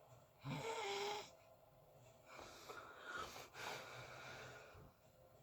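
Snoring: a loud snore with a whistling tone about half a second in, then a longer, quieter breath out.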